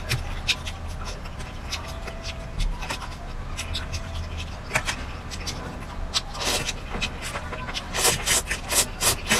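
Close-miked eating: a metal fork clicking against a metal tray and broccoli being chewed, with short crisp ticks throughout. Near the end come several louder, noisy slurps as strands of sauced enoki mushroom are sucked into the mouth. A steady low hum runs underneath.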